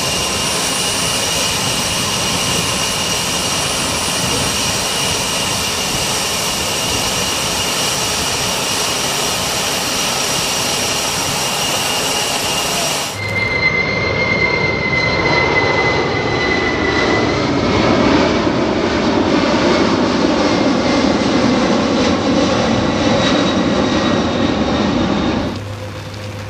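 Steady high-pitched jet turbine whine with fixed tones. About halfway through, a cut to the louder roar of a C-5M Super Galaxy's four turbofan engines as it climbs out, with a whine that dips slightly in pitch. Near the end the engine sound drops to a quieter, steadier level.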